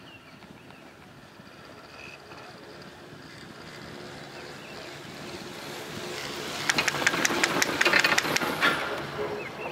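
Garaventa detachable chairlift's haul rope and chair grip running over roller sheaves: a swelling hum, then a fast, even clatter of about six clicks a second for some two seconds as the chair passes, fading afterwards.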